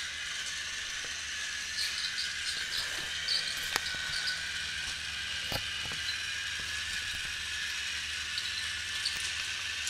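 Battery-powered TrackMaster toy train engine running on plastic track: a steady whir of its small motor and gearbox, with a few sharp clicks.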